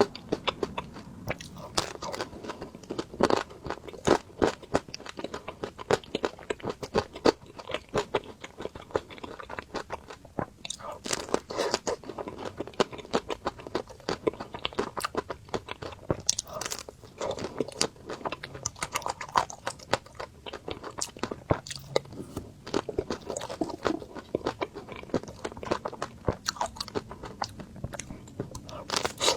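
Close-up crunching and chewing of crispy ice cream, with many quick, irregular crackles of the crunchy coating breaking between the teeth.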